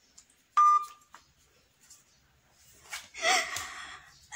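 A short, loud, high-pitched tone about half a second in, then a woman laughing and shrieking near the end.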